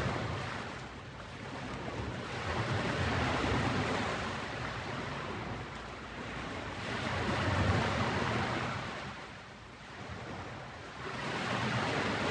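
Ocean surf: waves breaking and washing in, a steady rush that swells and fades three times, about every four to five seconds.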